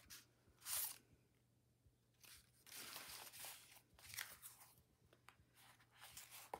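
Faint rustling and sliding of painted paper sticker sheets as they are flipped through by hand and set down, in a few short spells.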